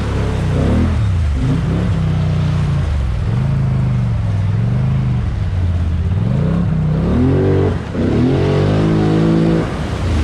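Polaris Sportsman Highlifter ATV engine running under changing throttle, its pitch rising and falling several times, with a brief drop about eight seconds in.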